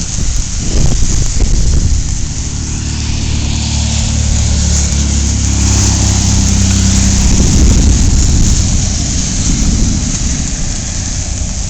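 A motor vehicle's engine running close by for several seconds, louder in the middle and then fading, over steady rain.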